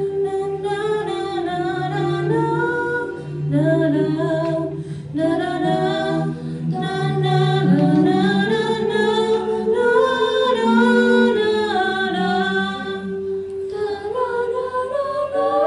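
A cappella group of six singers performing a song in several-part harmony through handheld microphones, a low bass line under the higher voices. The voices drop out briefly near the end, then come back in together.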